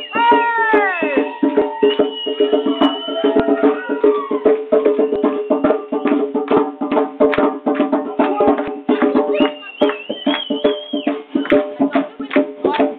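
Djembe played by hand in a fast, dense rhythm of slaps and tones, over steady held notes, with a falling wail at the very start and a high held note about ten seconds in.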